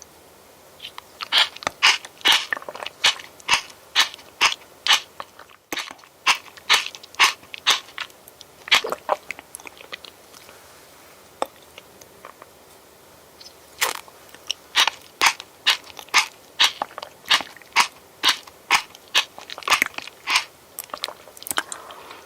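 A person chewing crunchy food close to the microphone, about two crunches a second, with a pause of a few seconds in the middle.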